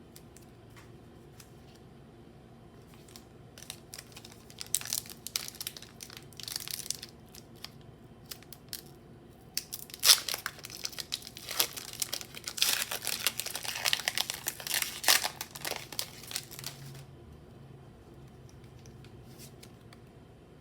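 Crinkling and tearing of a Pokémon booster pack's foil wrapper as it is handled and ripped open. It starts about four seconds in, is loudest over a stretch in the middle, then stops.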